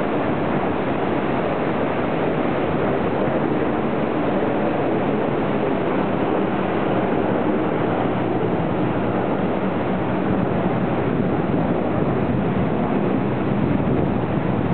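Steady rush of ocean surf breaking and washing up the beach, mixed with wind buffeting the microphone.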